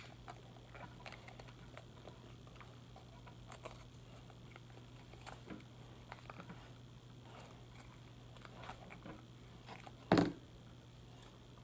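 Plastic squeeze bottle of white school glue being squeezed and worked over a plastic tub, giving faint scattered clicks and crackles over a low steady hum. One louder knock comes about ten seconds in as the bottle is shaken.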